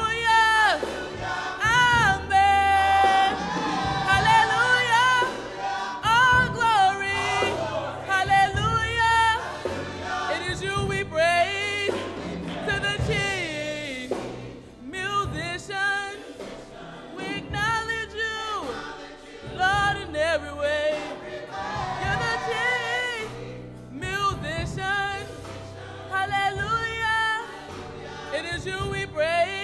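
Gospel choir singing with vibrato, accompanied by piano and drums under steady low bass notes.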